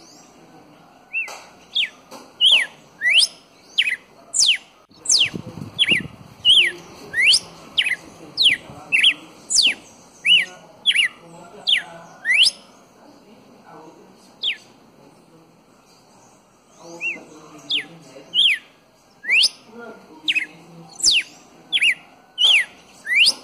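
Red-cowled cardinal singing: a run of quick whistled notes, each sweeping up or down in pitch, about one or two a second, breaking off for a few seconds midway and then starting again.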